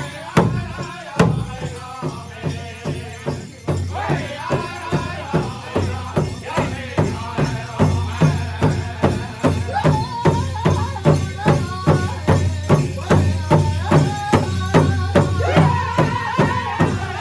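Pow wow drum group: singers around a big drum, striking it together in a steady even beat while they sing a high, wavering chant in unison.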